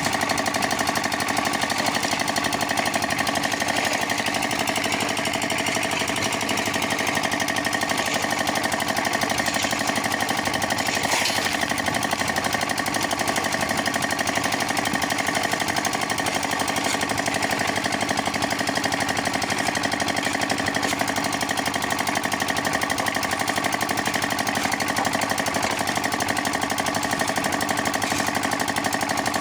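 Concrete mixer machine running steadily, its motor giving a fast, even pulsing beat that holds unchanged throughout.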